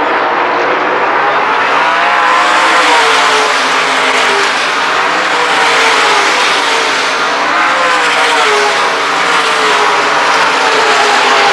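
A field of dirt-track race cars running hard around the oval, several engines at once, their pitch rising and falling in waves as the cars go through the turns and past.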